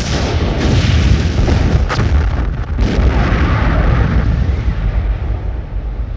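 Explosion sound effect: a heavy blast followed by a long, deep rumble with crackling debris, with further sharp bangs about half a second, two seconds and three seconds in, the rumble easing slightly near the end.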